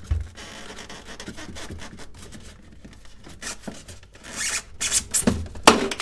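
Plastic lamp-and-thermostat cover in a Samsung refrigerator being pried off with a screwdriver: plastic rubbing and scraping with scattered clicks, then a run of louder snaps near the end as the retaining clips pop free.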